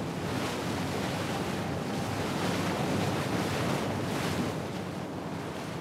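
Water rushing and breaking in a ship's bow wave, with wind on the microphone and a faint low drone underneath.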